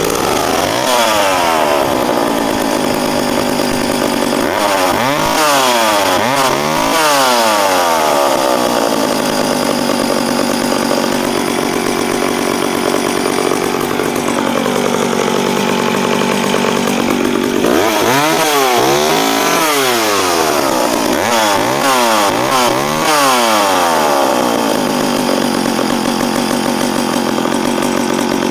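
Danarm Frontier 5R vintage two-stroke chainsaw running just after a cold start, its first run in about three weeks. It is revved up and down in repeated throttle blips a few seconds in and again after about eighteen seconds, with a strong, even engine note between them.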